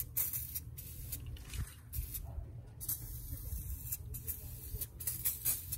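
Short hissing spritzes of a shine spray being sprayed onto engine-bay plastics and hoses. They come in quick clusters, about once a second.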